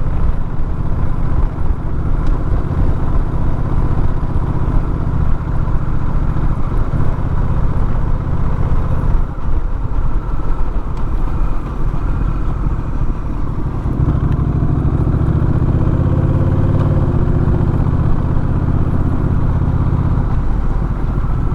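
Motorcycle climbing a mountain road: engine running under a steady rush of wind and road noise, with a heavy low rumble that swells between about 14 and 20 seconds in.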